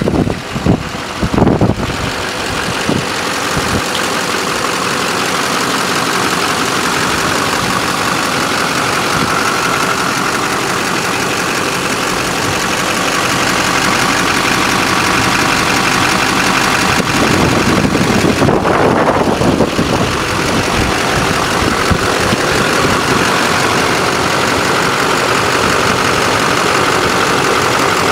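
A 6.6-litre LBZ Duramax turbodiesel V8 idling steadily with diesel clatter, swelling briefly in loudness about two-thirds of the way through.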